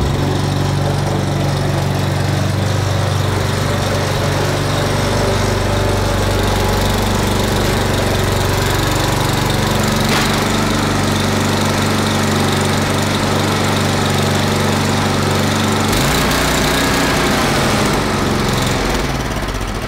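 The 1979 Toro 826 snowblower's 8 hp Briggs & Stratton single-cylinder engine running steadily, its note changing about sixteen seconds in and the sound dropping away just before the end.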